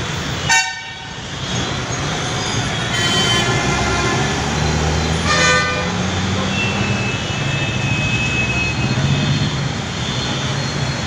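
Road traffic with vehicle horns honking: a short loud honk near the start, more honks about three and five and a half seconds in, over a steady drone of engines and traffic noise.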